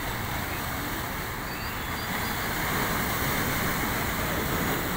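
Rough sea breaking and splashing against shoreline rocks: a steady rushing surf that swells louder a couple of seconds in.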